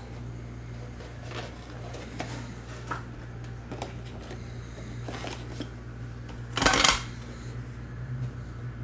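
Cardboard card boxes and packaging being handled at a desk: small clicks and light rustles, with one louder, harsher rustle lasting under half a second about two-thirds of the way through. A steady low hum runs underneath.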